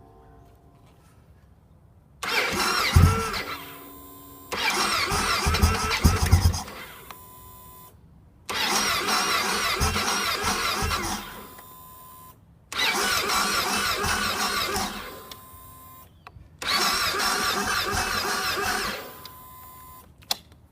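Motorcycle engine being cranked on its starter in five separate attempts of two to three seconds each, with a few low coughs during the first two, but it does not catch and run: a hard start.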